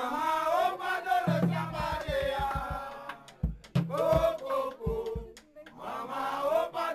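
Music: voices chanting, with a run of low drum beats through the middle.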